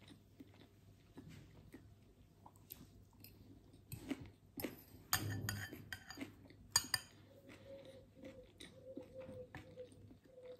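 Quiet chewing, with a metal fork clinking and scraping against a glass bowl; the clinks bunch together and are loudest a little past the middle.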